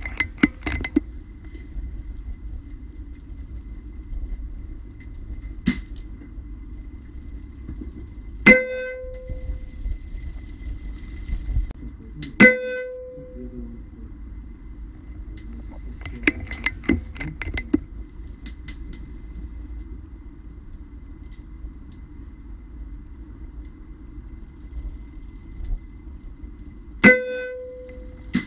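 Air Arms S410 pre-charged pneumatic air rifle firing three shots, each a sharp crack with a short metallic ring, with softer clicks between them. A steady low wind rumble runs underneath.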